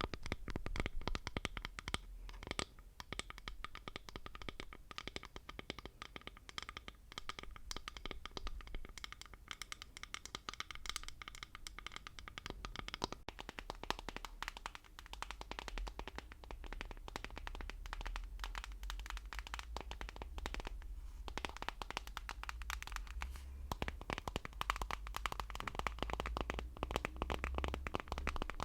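ASMR tapping close to the microphone: a dense, fast run of small taps and clicks, mixed with scratching, with a faint low rumble underneath.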